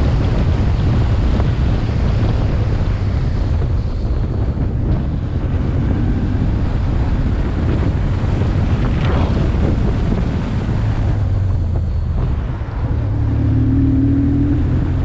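Wind buffeting a helmet-top GoPro microphone at riding speed, over the low, steady drone of a BMW R1150R's boxer-twin engine.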